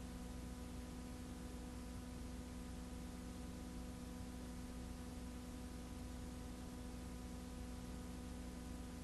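Steady electrical hum with a few constant tones over even hiss, with no other sound: the background noise of a transfer of silent film footage that has no soundtrack.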